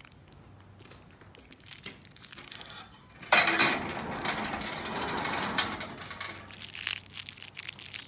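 Cellophane-wrapped peppermint candies being handled: light clicks and rattles, then a loud burst of crinkling wrapper from about three seconds in, with more crackling near the end.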